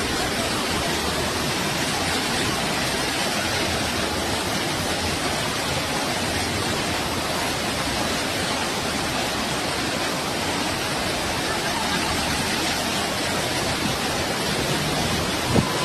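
Steady, dense rush of floodwater, with one short thump near the end.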